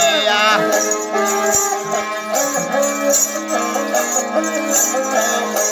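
Rajasthani bhopa folk music, instrumental: a ravanhatta (bowed folk fiddle) plays the melody over a steady drone, while jingling bells keep a quick, even rhythm. The tail of a sung line ends about half a second in.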